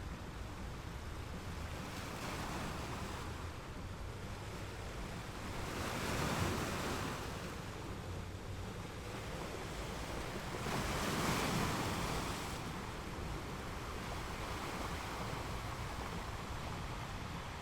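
Ocean surf: a steady wash of waves with two louder breakers swelling and falling away, about six and eleven seconds in.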